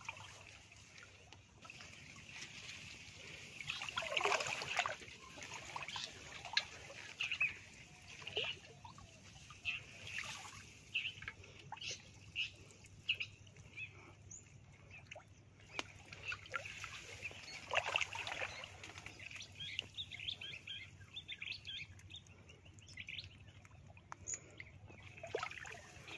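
Water trickling and splashing as a fine nylon gill net is lifted and picked over by hand in flooded paddy water, with two louder splashes about four seconds in and again near eighteen seconds. Birds chirp in short high calls throughout.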